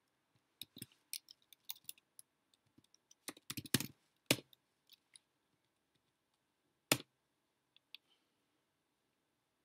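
Computer keyboard typing: an irregular run of key clicks, with a few harder keystrokes about four seconds in and one sharp single keystroke about seven seconds in.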